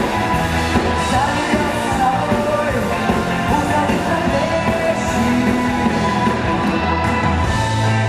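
Live rock band playing, with drum kit, electric bass guitar and cello, and a woman singing into a microphone.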